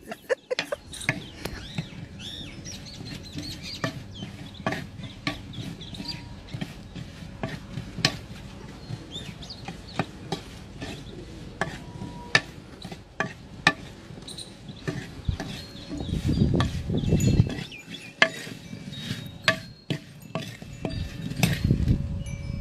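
A metal spoon stirring a bowl of small whole raw onions, with irregular clicks and scrapes as the spoon knocks the bowl and the onions. Chickens cluck faintly in the background.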